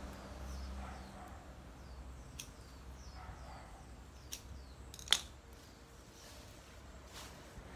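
Leafy branches rustling as they are handled and stripped by hand, with a few sharp snaps of stems; the loudest snap comes about five seconds in. Faint high chirps repeat about twice a second behind it.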